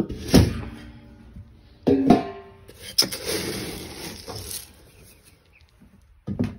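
Galvanized metal feed can lid clanging and ringing as it is pulled off, and again about two seconds in. From about three seconds in, a plastic scoop digs into the chicken feed with a steady rattle of pellets.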